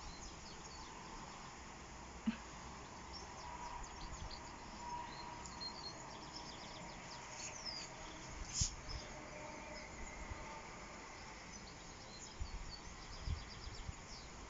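Faint outdoor ambience with small birds chirping now and then, and a few soft low bumps.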